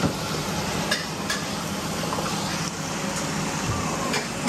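Stir-fry sizzling in a street-stall wok: a steady frying noise, with a few sharp metal clinks of utensils against the wok and plate.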